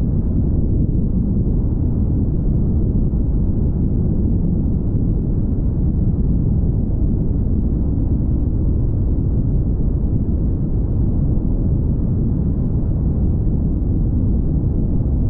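Steady low rumble of a car travelling at highway speed: tyre and wind noise without a distinct engine note.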